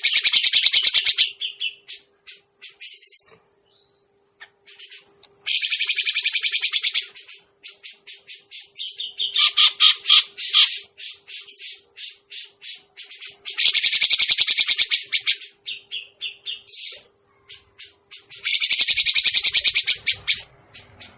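Grey-cheeked bulbul (cucak jenggot) calls used as a bird-trapping lure: four harsh, rapid chattering rattles of about a second and a half each, with scattered short chirps in between.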